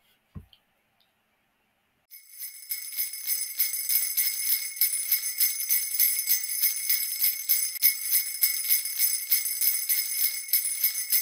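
Jingle bells shaken in a steady, even rhythm, starting about two seconds in after a short low thump and a brief silence.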